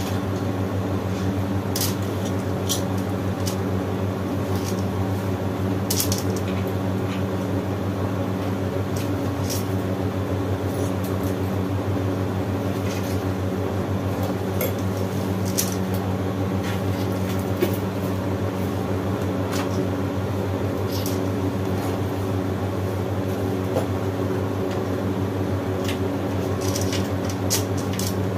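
Scattered light metallic clicks and clinks of tools and chainsaw parts being handled, over a steady low mechanical hum.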